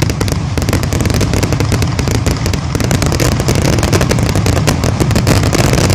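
Fireworks grand finale barrage: aerial shells bursting in rapid, overlapping bangs, many a second, without a break.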